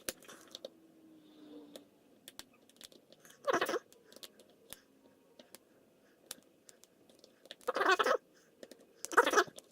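Small metallic clicks and ticks of a hook pick working the pins of a lock cylinder under a hex-key tension wrench, with three louder scraping bursts about a third of the way in and twice near the end.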